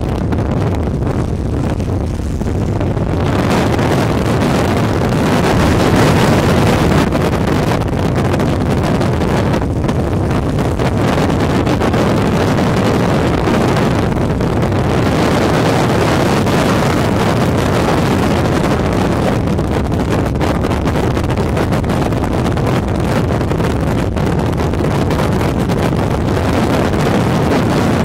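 Steady wind rush and road noise from driving at speed, with wind buffeting the microphone.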